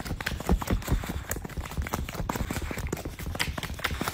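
A dog licking a person's face: a run of quick, irregular wet smacks and clicks.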